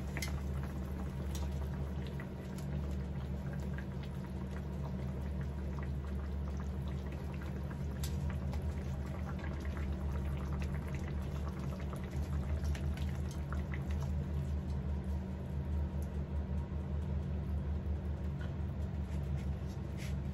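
Wild boar chops simmering in a pan of whiskey sauce, a faint bubbling crackle, with a few sharp clicks of metal tongs against the frying pan as the chops are lifted out. A steady low hum runs underneath.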